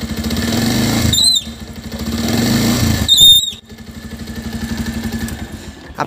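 Bajaj Pulsar's single-cylinder engine revved twice in gear with the rear wheel spinning. Each rev ends in a short, high-pitched squeal from the rear drum brake, about a second and about three seconds in, before the engine settles to idle. The squeal comes from dirt in the brake drum and glazed brake shoes.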